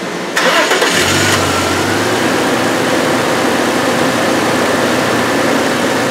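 The 2000 Audi A6's 2.8-litre V6 is cranked by the starter about half a second in, catches within about a second, and settles into a steady idle.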